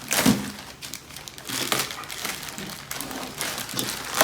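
Crinkly packaging of a delivered parcel rustling and crinkling in irregular bursts as it is pulled at to tear it open by hand. The loudest crinkle comes just after the start.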